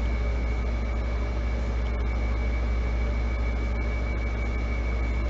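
Steady background room noise: a strong low hum under an even hiss, with a thin, steady high-pitched whine.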